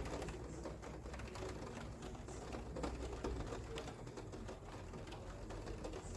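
Rain pattering, a dense run of small irregular ticks over a low rumble.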